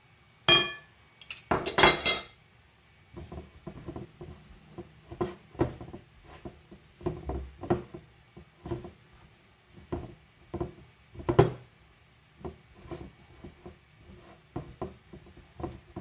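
Glass mixing bowl clinking and knocking as a hand presses and gathers crumbly shortcrust dough in it. A ringing clink comes about half a second in and a loud clatter near two seconds, then steady knocks about twice a second as the hand works the dough.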